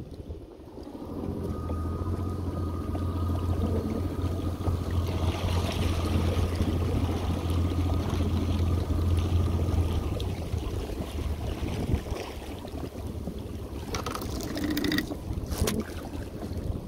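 A motor on the crabbing boat running with a steady low hum. It starts about a second in and fades out about ten seconds in. A few sharp knocks follow near the end.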